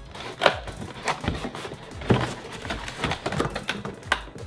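Cardboard packaging of a graphics card being handled and opened: irregular knocks, clicks and scrapes.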